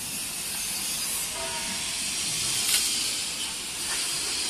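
Steady hiss with one short scrape about two and a half seconds in, as the mesh conveyor belt of a roller heat press is dragged by hand over the rollers and felt.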